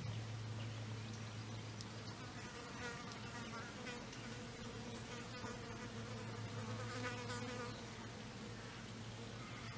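A flying insect buzzing steadily with a low, even hum.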